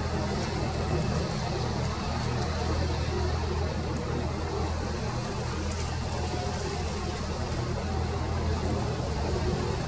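Steady low rumble of a Boeing 787-9 airliner's jet engines on approach, heard from the ground as a constant hum with a broad roar above it.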